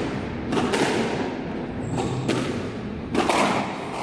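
A squash ball being hit by rackets and striking the court walls during a rally: a series of sharp knocks, some in quick pairs, roughly a second or more apart.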